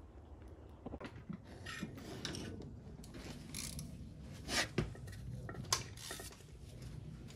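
Metal hand tools clinking and scraping, with a few sharp metallic clinks, loudest about four and a half to six seconds in.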